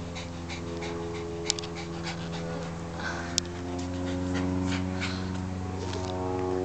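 Small Maltese–shih tzu cross dog panting in quick, repeated breaths. Two brief sharp clicks stand out, one about a second and a half in and one past the middle.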